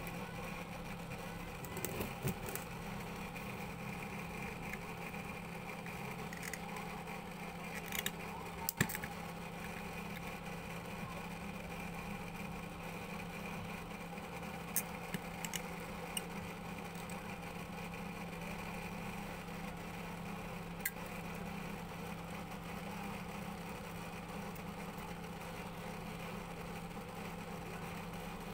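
A machine running with a steady low hum, broken by a few short sharp clicks.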